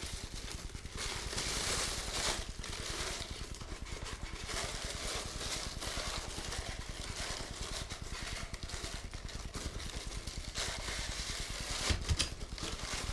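Plastic packaging rustling and crinkling in an irregular run of crackles as a model part is unwrapped and handled, over a steady low rumble.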